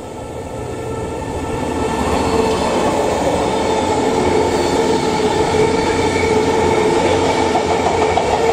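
JR 485 series electric multiple unit passing close by on the rails. Its sound grows over the first two seconds as it arrives, then holds loud and steady, a rumble of wheels and running gear with a steady whine running through it.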